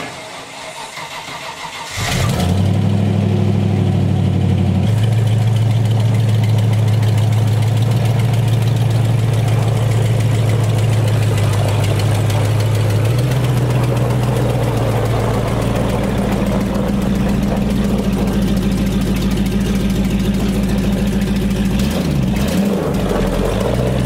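Land Rover Discovery 1's V8 engine catching about two seconds in, then running steadily at low revs as the truck creeps out under its own power, with a brief wavering of the engine note near the end.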